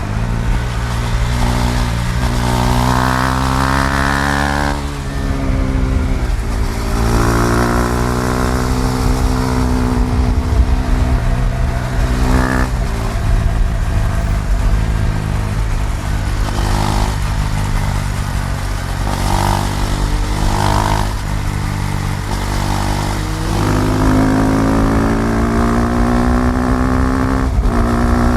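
KTM Duke 390 single-cylinder engine accelerating hard through the gears: the pitch climbs for a few seconds, drops sharply at each shift, and climbs again, several times over.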